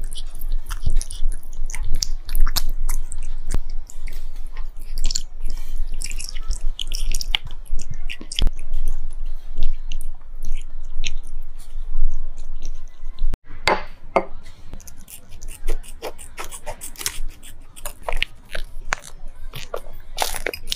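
A cat chewing and licking hand-held raw liver and meat, with many irregular wet mouth clicks. A steady low hum under the first part drops out abruptly about two-thirds of the way through.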